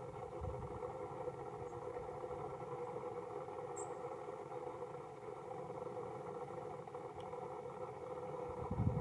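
Steady distant rumble of a four-engine jet airliner cruising high overhead, with a faint high chirp about four seconds in and a louder low thump right at the end.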